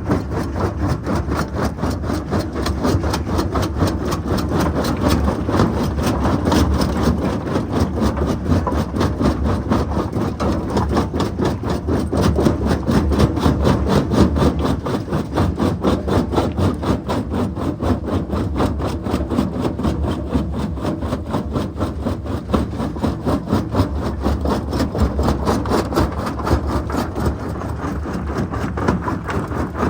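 Heavy diesel quarry machinery running steadily with a fast, even pulsing: a Jonsson 1208 mobile jaw crusher at work while a Volvo EC530 excavator feeds it.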